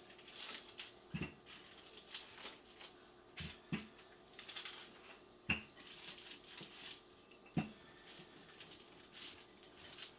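Wooden rolling pin rolling dough between sheets of parchment paper on a countertop: a soft papery rustle with each stroke, and a light knock four times, about every two seconds.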